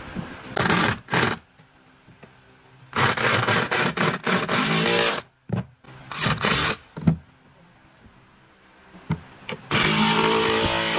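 Electric drill driving long wood screws into a solid-wood wardrobe frame, in about four bursts of one to two seconds each with short pauses between, the longest about three seconds in.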